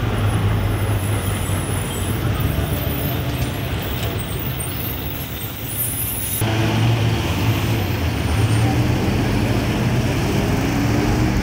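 Diesel engine of a city bus running as it passes close by in street traffic. About six seconds in the sound changes abruptly, and then the engine note rises as the bus pulls past.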